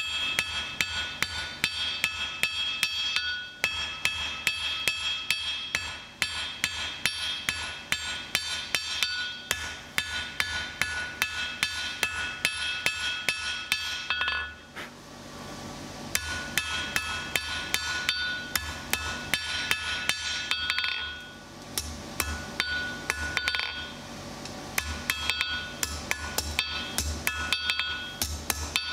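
Hand hammer striking red-hot mild steel on an anvil, fast runs of blows with a bright metallic ring after each, broken by short pauses about halfway through and again about two-thirds of the way through. The blows are shaping the hot bar.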